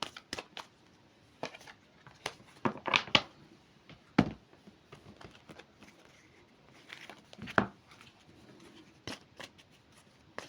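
Tarot cards being shuffled and laid out on a table: irregular light snaps and rustles of card stock, a dozen or so over the span, with short quiet gaps between them.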